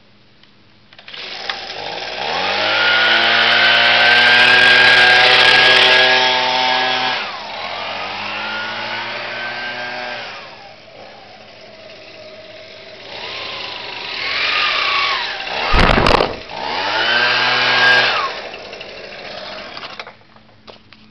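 Husqvarna 125B handheld leaf blower's two-stroke engine starting up and revving to full throttle for several seconds. It drops back to idle, is revved twice more and shuts off near the end. A brief loud burst of noise cuts in about three-quarters of the way through.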